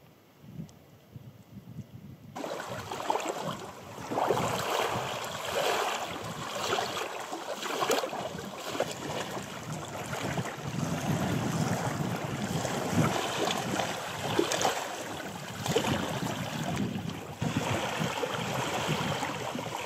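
Small wind-driven waves lapping and splashing on the sandy shore of a mountain lough, with gusty wind buffeting the microphone. The first two seconds or so are quiet, then the water and wind come in suddenly.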